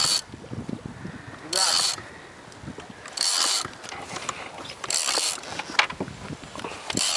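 Big-game fishing reel's drag buzzing in short bursts as a hooked tuna pulls line off against the bent rod, five times, about every one and a half to two seconds.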